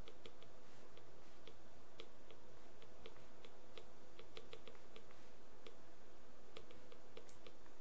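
Faint, irregular small clicks and taps of a stylus writing on a tablet screen, over a steady low hum.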